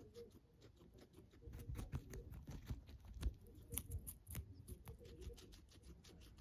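Guinea pig chewing celery stalk: a fast, even run of small crunches and clicks of its teeth, several a second. Louder for a few seconds in the middle, with a few sharper crunches.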